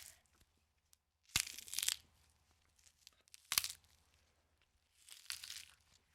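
Bone-cracking sound effect: separate sharp cracks and crunchy crackles with silence between them. There is a crackling crunch just over a second in, a sharp crack at about three and a half seconds, and a softer, longer crackle near the end.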